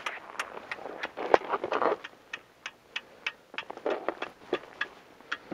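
Fishing gear being packed up with gloved hands: a plastic tackle box shut and handled, giving a run of sharp clicks and knocks with rustling, the loudest knock about a second and a half in.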